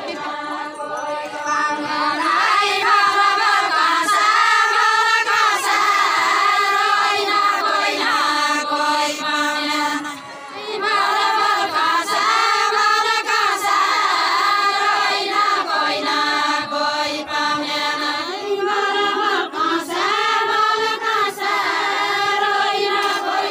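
A group of women singing a deuda folk song together, unaccompanied, in long repeating phrases, with a brief break about ten seconds in.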